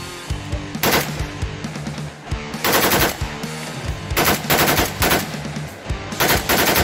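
AK-47 rifle firing on full auto in four bursts, the first only a couple of rounds and the last running on past the end, over background rock music.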